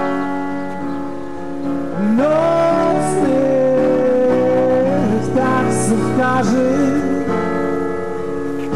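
Amplified live music: a sustained instrumental chord with a voice singing long, sliding notes from about two seconds in until about seven seconds.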